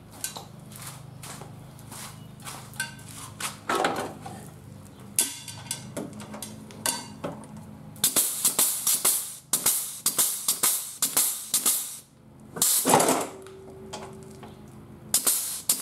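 Pneumatic grease gun pumping grease into a mower-deck blade spindle's grease fitting: a rapid run of sharp, hissing strokes about halfway through, then two shorter bursts. Handling clicks come before the strokes.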